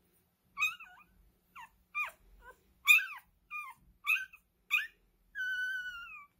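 One-week-old Miniature Schnauzer puppy squeaking and whimpering. It gives a string of short high squeaks, then one longer cry near the end that falls slightly in pitch.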